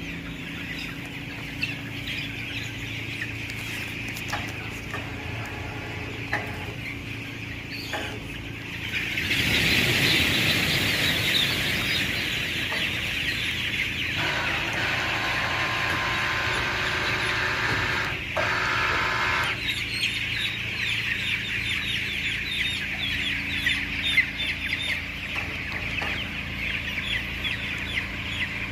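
A large flock of 16-day-old broiler chickens peeping and cheeping all together, a dense steady chatter that grows louder about nine seconds in. Under it runs the low steady hum of the house's fans.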